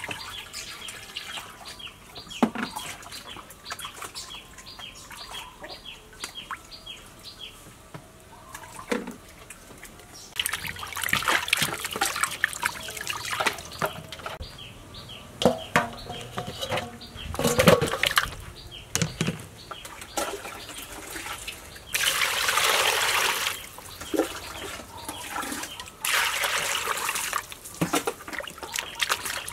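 Water splashing and sloshing in a metal basin as pork bones are washed by hand, with sharp splashes in the middle and two louder rushes of pouring water in the second half.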